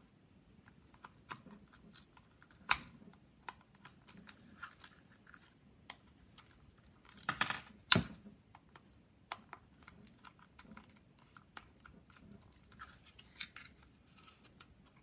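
Scattered small plastic clicks and taps as the clip-fastened plastic shell of a DJI Mavic Air drone is prised apart with a plastic card and handled. There is a louder click a few seconds in, and a sharp knock about eight seconds in is the loudest.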